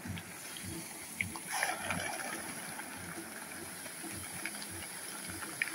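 Barramundi splashing and churning at the pond surface as they take thrown feed, with one louder splash about a second and a half in and small scattered plops.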